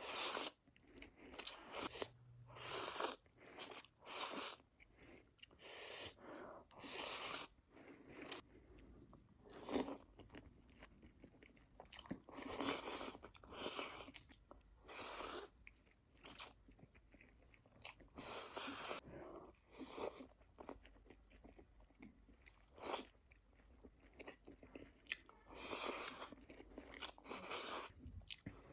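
Close-miked eating sounds of a person eating Korean spicy instant noodles with a fried egg: repeated bites and chewing in bursts every second or two.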